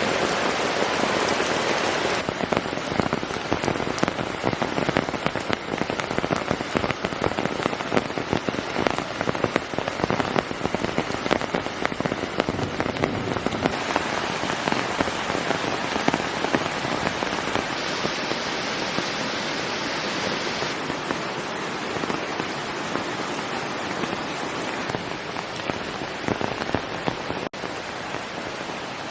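Steady heavy rain falling. The sound changes character abruptly about two seconds in and again a few times later, with a brief dropout near the end.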